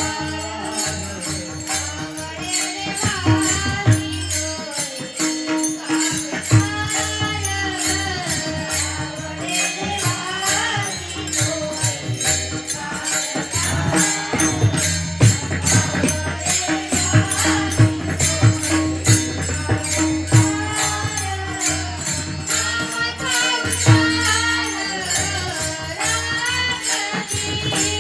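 Devotional Marathi kirtan singing: a woman's voice sings a gliding melody over a steady held drone. Fast, even cymbal-like jingling keeps the beat throughout, with drum strokes underneath.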